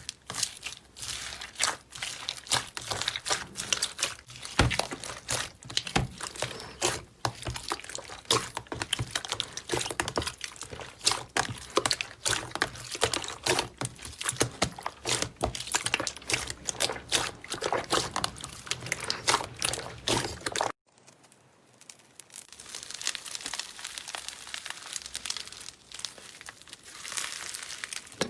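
Slime being squeezed and pressed by hand, making dense, rapid crackling and popping clicks. About 21 seconds in the sound cuts off abruptly and a softer, quieter squishing follows.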